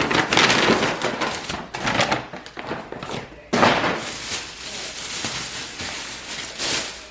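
Grocery bags and packaging rustling and crinkling as items are handled and unpacked, with a sudden louder rustle about three and a half seconds in.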